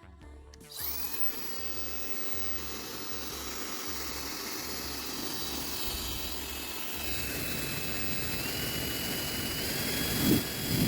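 Dykemann Powerwind SE-05 hair dryer switched on about a second in, blowing with a steady rush of air and a high motor whine that steps up in pitch twice near the end. A couple of low bumps come at the very end.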